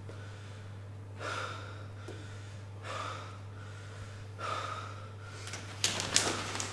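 Heavy, laboured breathing of an exhausted boxer, a breath about every second and a half, with a couple of sharper, louder breaths near the end.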